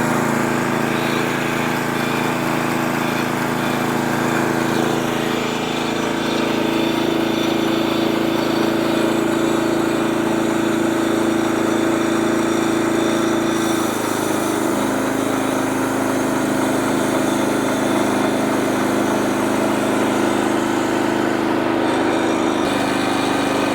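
Portable sawmill's engine running steadily under load as the blade cuts through a hard black walnut log. The engine note shifts a few seconds in, drops a little about halfway through and picks back up near the end as the load on the blade changes.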